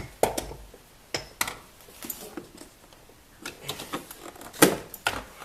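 Irregular clicks, taps and knocks of a 2003 Subaru Forester's plastic glove box and dashboard trim being handled and pulled free after its last screw is out. The loudest knock comes about four and a half seconds in.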